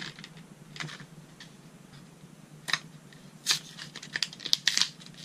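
A Sharpie marker's card-and-plastic blister pack being handled and torn open: scattered crinkles and clicks, few at first and coming thick and fast in the second half.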